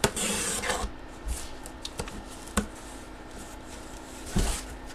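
Cardboard mystery box being opened by hand: a scraping, rustling rub in the first second, then a few scattered knocks and rubs as the packing is handled.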